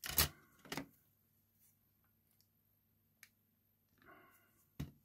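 Small tools and plastic parts of a disassembled electric toothbrush handle being handled: two sharp clicks near the start, a short scrape about four seconds in, and another click near the end, as a pin is pushed out of the drive unit.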